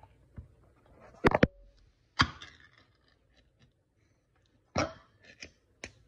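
Ring-pull lid of a metal food can being pried up and torn open: a cluster of sharp metallic cracks just over a second in, another crack with a short rough tear about two seconds in, and a few more pops and clicks near the end.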